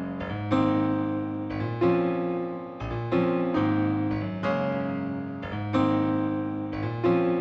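Background music: keyboard or electric piano playing slow, sustained chords, a new chord struck about every second and a quarter and left to fade.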